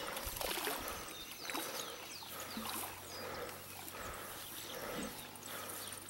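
Water sloshing and splashing as a hooked bighead carp struggles at the surface by the bank, with an animal call repeating about once a second in the background.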